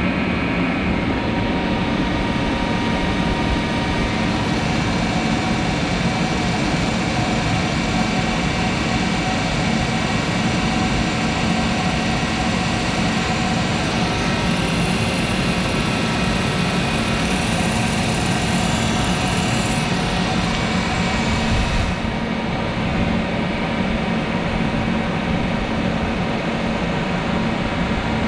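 Monarch 10EE lathe running on its motor-generator DC variable-speed drive: a steady mechanical hum with several whining tones. A high whine joins about halfway through, and about three-quarters through the hiss drops away suddenly while the hum carries on.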